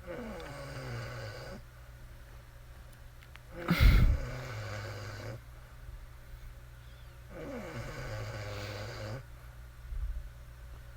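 A woman snoring in slow regular cycles, one snore about every three and a half seconds, each starting with a falling pitch and settling into a low steady rattle. The second snore, about four seconds in, opens with a loud sharp snort, the loudest sound here.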